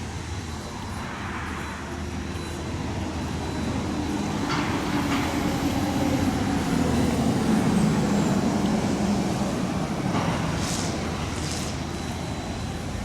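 A heavy diesel engine runs steadily, growing louder to a peak in the middle and easing off again with a slight drop in pitch. A few short clanks or knocks are heard around the middle and near the end.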